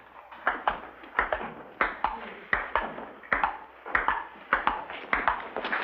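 Table-tennis rally: a ping-pong ball clicking back and forth between the table and the paddles in a quick, steady rhythm of about three clicks a second.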